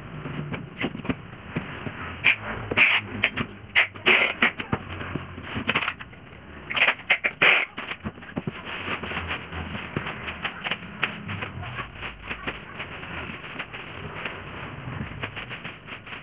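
Packing noises: cardboard and a large plastic bag being handled, rustling and crinkling, with several short loud rasps in the first half.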